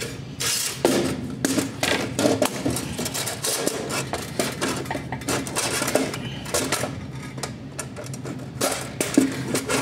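Sheet-metal recessed light can housing and its metal bar hangers clanking and scraping against wooden ceiling joists as it is pushed up into place, a steady run of irregular knocks and rattles.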